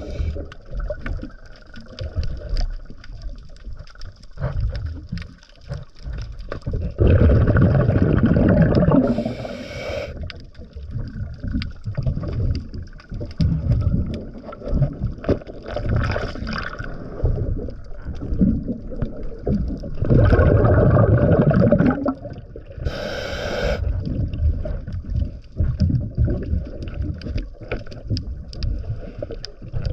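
Scuba diver breathing underwater: twice, a couple of seconds of bubbling exhaust from the regulator, each followed by a short hissing inhale, over a steady underwater background with scattered faint clicks.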